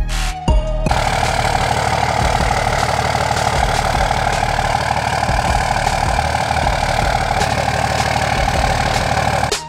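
Third-generation Dodge Ram's Cummins turbo-diesel engine idling steadily, starting about a second in.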